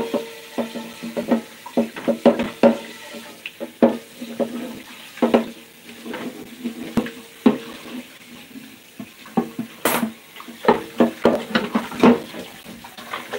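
Dishes being washed by hand at a kitchen sink: running tap water, with dishes and cups knocking and clinking again and again, and one sharp clank about ten seconds in.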